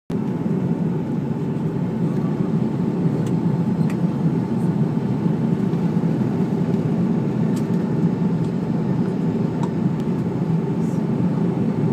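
Steady drone of engine and airflow noise in an Airbus airliner's cabin during the descent to land, heard at a window seat beside the engine, with a faint steady tone over it.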